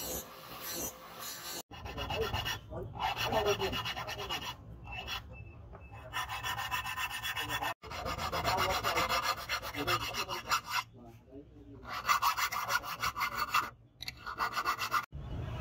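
Round hand file rasping back and forth in the scalloped spine of a leaf-spring steel knife blade, steel on steel, in runs of strokes with short pauses between them.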